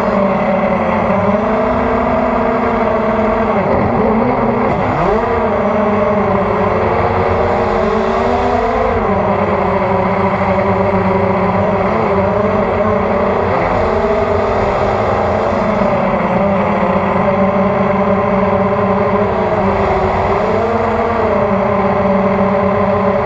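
Hexacopter's six electric motors and propellers droning, heard from its onboard camera, the pitch dipping and rising as the throttle changes, most sharply twice around four and five seconds in.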